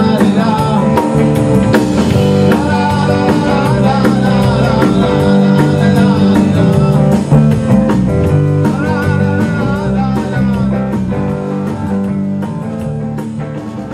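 A rock band playing live: drum kit with cymbals, electric guitar and bass guitar, with a singer's voice at times. The music slowly gets quieter over the last few seconds.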